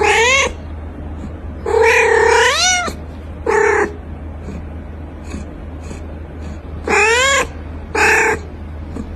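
Cat meowing loudly five times, the longer calls bending up and down in pitch, over a steady low hum.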